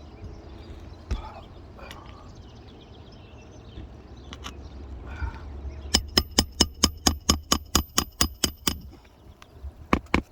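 Hammer driving a roofing nail through an asphalt shingle: a fast run of about fifteen ringing metal strikes, roughly five a second, lasting about three seconds, then two more blows near the end. Faint taps and scrapes come before the hammering.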